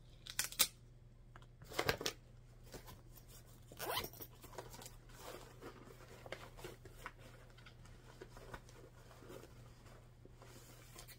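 Irregular rustling and crinkling of a cloth bag and paper as a hand rummages inside it, with sharper crinkles in the first few seconds and fainter handling noises after.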